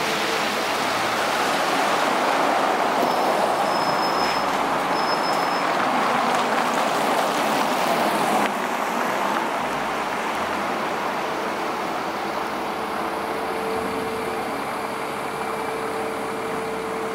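Street traffic: a steady rush of passing cars. It drops suddenly about halfway through, and a faint steady hum stays under it afterwards.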